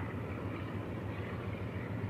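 NSW 36 class steam locomotive 3642 and its excursion train passing at a distance, a steady low rumble.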